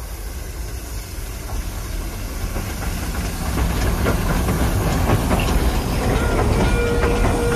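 Small narrow-gauge steam locomotive and its open passenger cars rolling across a wooden trestle bridge, growing louder as it comes close: a low rumble with the clicking and clatter of wheels over the rails. A thin steady whine sounds briefly near the end.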